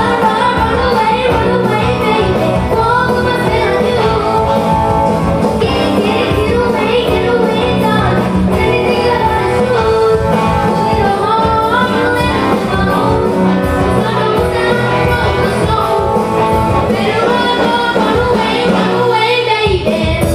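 A live rock band playing a pop cover, with a singer's voice over electric guitar, bass and drums at a steady beat.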